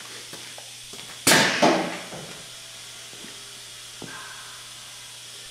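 A sheet metal brake gives a single sharp metal clank about a second in, which rings briefly with a second hit close behind it. A couple of faint clicks follow, over a low steady hum.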